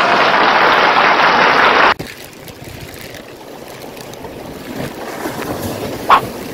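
Loud splashing, rushing sea water for about two seconds that cuts off suddenly, then quieter lapping water with one short sharp click near the end, as a hooked gizzard shad is reeled in.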